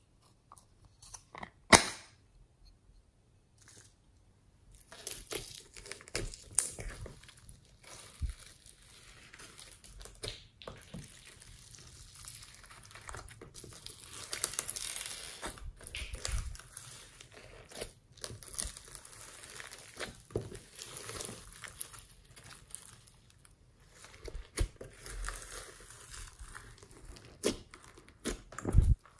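Slime being kneaded and mixed with foam beads in a glass dish: irregular crackling and popping with sticky squishing. There is a single sharp click about two seconds in.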